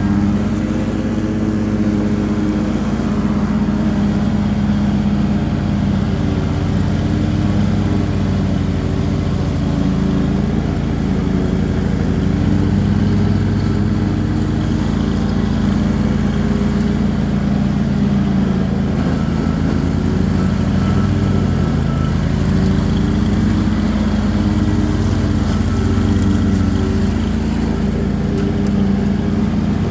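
Cub Cadet XT3 riding lawn tractor's engine running steadily under load while mowing tall grass and weeds. Its pitch dips and recovers slightly now and then.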